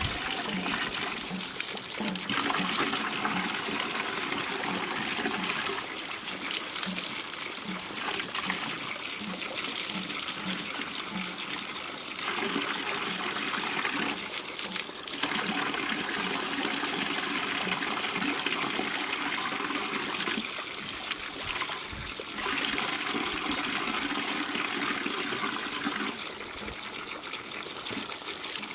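Water running steadily from an outdoor standpipe tap over clothes being hand-washed, splashing into a plastic bucket and concrete basin below; the splashing shifts in tone every few seconds.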